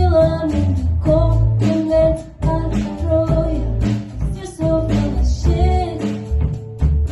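A woman singing a slow song over guitar accompaniment with a steady bass underneath.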